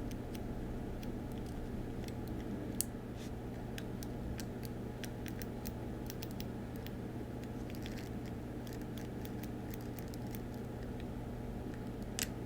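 Scattered light clicks and ticks from handling a decorative roller tape and paper planner pages, most frequent toward the end, over a steady low room hum.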